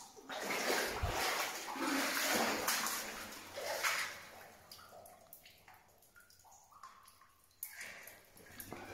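Water sloshing and splashing in a flooded mine level as someone moves through it, in a run of surges about a second apart that quieten about halfway through, then one more surge near the end.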